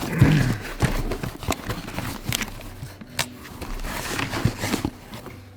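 Rustling and sharp clicks as packaging is torn open and a blow-off valve kit's small metal parts are handled, busier in the first second and easing off toward the end.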